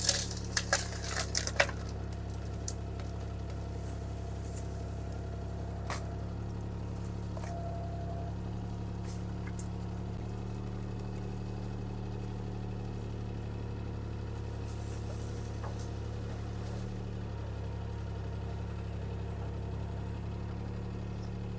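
Bobcat T300 skid steer's diesel engine running steadily with an even low hum. A few sharp knocks come in the first two seconds, and a single knock about six seconds in.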